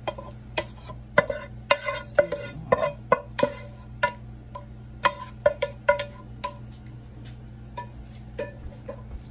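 A metal utensil clinking and scraping against a pan as sautéed onions and celery are spooned out. The irregular taps each ring briefly, come thickest in the first few seconds and thin out toward the end, over a steady low hum.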